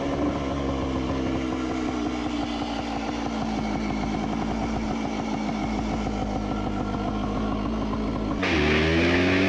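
1972 Ossa Pioneer 250's single-cylinder two-stroke engine running, its pitch slowly dropping. About eight seconds in it is cut off by heavy metal guitar music.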